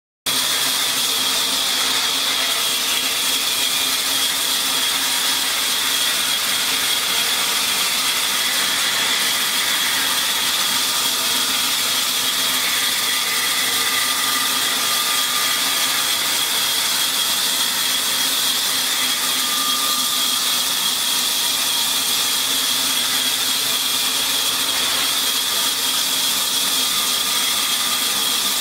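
Large vertical band saw running steadily with a high whine, its blade cutting lengthwise through a log slab as it is pushed through. The sound starts abruptly just after the start.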